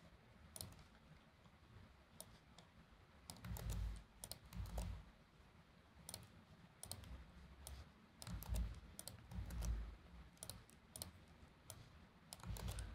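Faint typing on a computer keyboard: scattered, irregular key clicks. A few dull low thumps come in two clusters, about a third and two thirds of the way through, and these are the loudest sounds.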